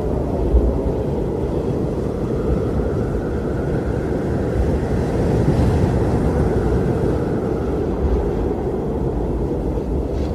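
Strong wind blowing steadily with a deep rumble, swelling in a gust about halfway through.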